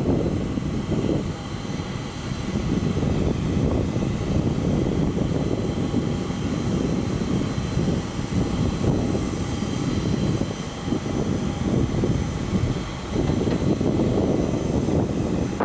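Aircraft turbine engines running on the flight line: a steady high whine over a low, uneven rumble.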